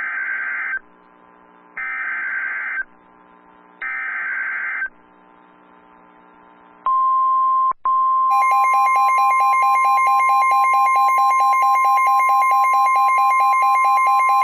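Emergency Alert System data header: three short bursts of screechy digital tones about a second apart. About seven seconds in, the steady single-pitch NOAA Weather Radio alert tone starts, and a second later a lower, rapidly pulsing buzzy tone joins it.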